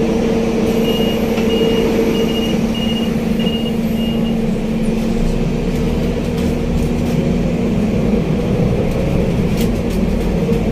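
Interior noise of a Scania Citywide city bus: the engine runs steadily while a run of six short electronic beeps sounds in the first few seconds. About five seconds in, a deeper low engine rumble comes in as the bus pulls away.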